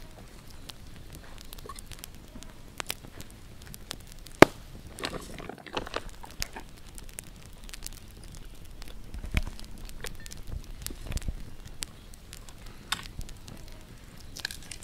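Small wood campfire crackling, with scattered sharp pops at irregular intervals; the loudest pop comes about four seconds in.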